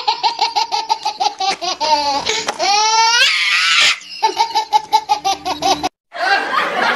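Rapid, high-pitched laughter in quick repeated "ha-ha-ha" pulses, with a brief rising squeal about halfway through; it breaks off abruptly near the end.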